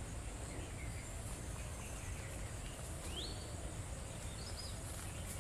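Quiet rural outdoor ambience: a steady low background noise with a faint high hiss. Over it a bird gives two short calls, a quick rising chirp about three seconds in and a brief higher note a second and a half later.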